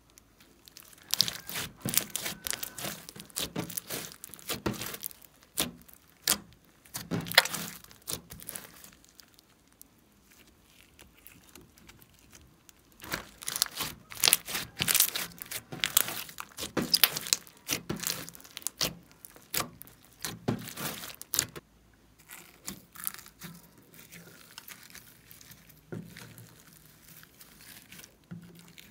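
Glossy slime with small beads mixed in being stretched, folded and pressed by hand: bursts of wet crackles, squishes and pops of trapped air. There is a quiet pause of a few seconds about a third of the way in, and the crackling is softer near the end.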